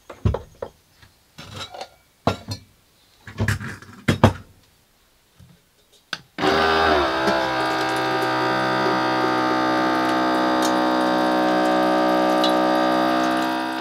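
Knocks and clatter of things handled on a wooden counter. Then, about six seconds in, a small electric water dispenser pump starts with a steady whine and pours water into a cooking pot, stopping near the end.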